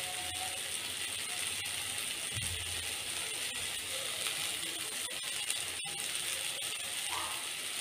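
Grated raw mango frying in oil in a pan: a steady sizzle with many faint fine crackles.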